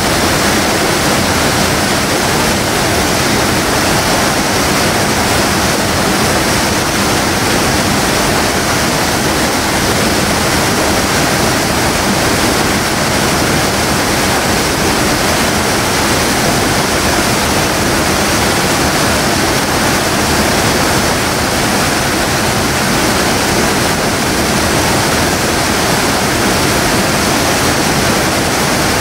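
River water pouring through a gap in a concrete weir and crashing into churning white water below: a loud, steady rush.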